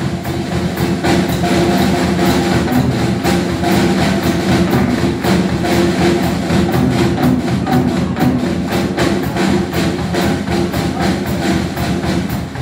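Live jive band music: a drum kit keeps a steady beat under sustained instrumental and vocal tones.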